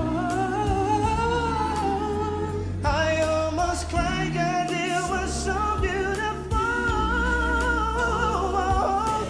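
Male R&B vocal group singing held, wavering harmonies over band backing with a steady bass line.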